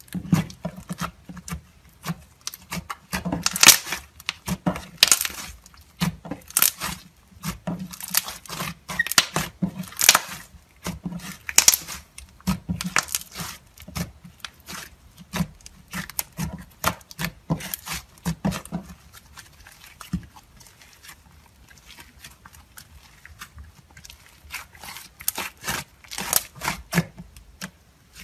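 Clay slime being kneaded, folded and pressed by hand, giving irregular sticky crackles and small pops. These thin out about two-thirds of the way through and pick up again near the end.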